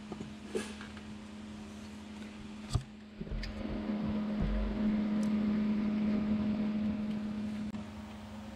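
Metal clicks and a sharp knock as a serpentine belt tensioner is handled and fitted against the engine, over a steady hum that grows louder about three seconds in.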